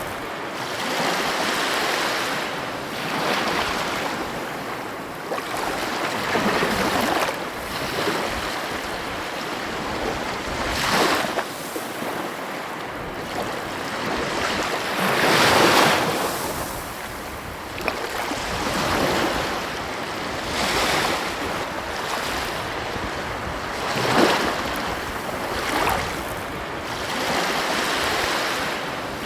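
Ocean waves breaking on a beach: a continuous rushing wash that swells with each breaking wave every few seconds, the biggest about halfway through and another near the end.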